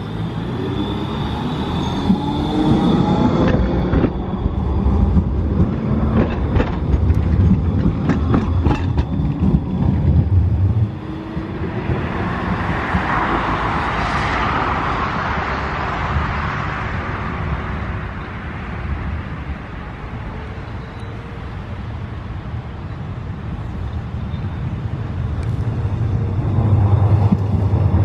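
Pesa Swing low-floor tram pulling away, its electric traction drive whining upward in pitch over a low rumble, with sharp wheel clicks over rail joints. The sound breaks off suddenly about eleven seconds in. Later a hiss swells and fades, and near the end another tram rolls past with a rising rumble.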